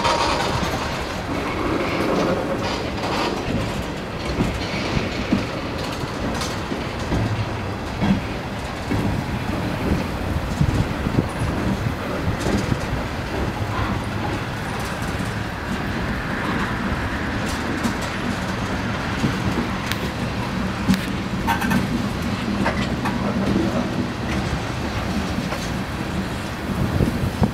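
Freight train of tank cars and open gondolas rolling past at speed: a steady noise of steel wheels on rail, with scattered clicks and knocks as the wheels pass over the rail joints.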